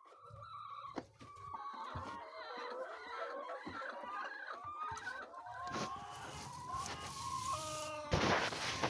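A flock of chickens clucking and calling, many short overlapping calls, with a brief loud noise about eight seconds in.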